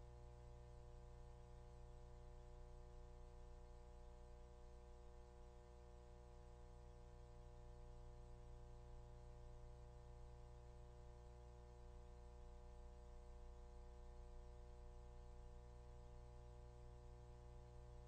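Near silence with a faint steady hum made of several constant tones.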